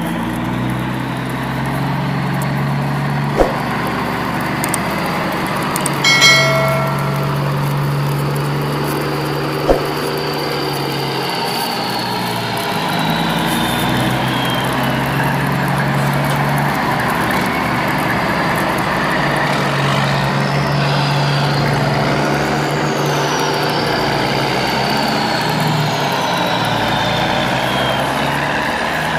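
Steady truck engine sound running on throughout, with two sharp clicks and a short pitched tone about six seconds in.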